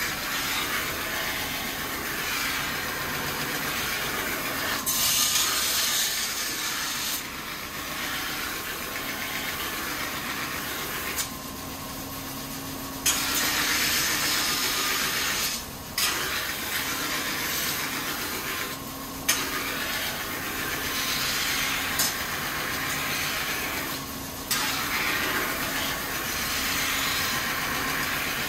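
Kitchen knife being ground on a water-fed rotating whetstone wheel: a steady grinding hiss, broken four or five times by brief pauses as the blade is lifted off, over a low steady hum.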